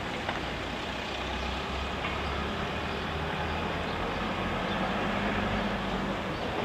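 A motor vehicle's engine running steadily: a low hum under broad outdoor noise, with a droning tone that comes in about two and a half seconds in and fades out near the end.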